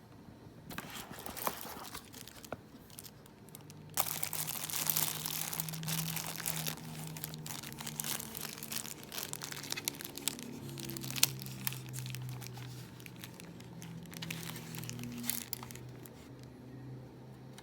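Packaging for a keyboard being handled and unwrapped: crinkling and rustling that starts about a second in, grows louder about four seconds in with a few sharp crackles, and dies down near the end.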